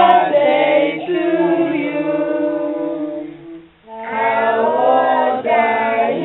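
A small group of voices singing unaccompanied, with long held notes; the singing breaks off briefly about three and a half seconds in, then starts again.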